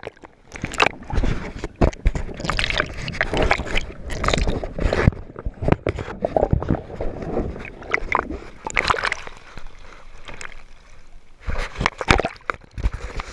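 Sea water sloshing and splashing over a GoPro at the wave surface, the camera dipping under and coming up again in irregular surges.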